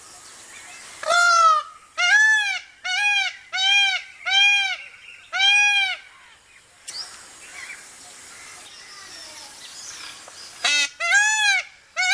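Indian peafowl (peacock) calling: a run of about six loud, nasal calls in quick succession, each rising and then falling in pitch. After a few quieter seconds, two or three more calls come near the end.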